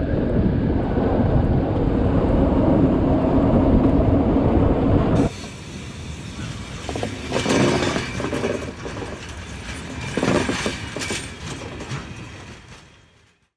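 Rhaetian Railway train running over the viaduct track, a loud steady rumble. About five seconds in it cuts abruptly to quieter intro sound effects with several sharp hits, which fade out near the end.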